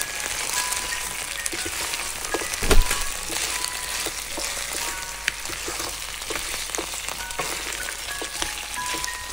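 Pieces of pre-boiled oxtail sizzling as they fry in a nonstick pan. A wooden spoon stirs them and knocks against the pan in frequent small clicks, with one louder knock about two and a half seconds in.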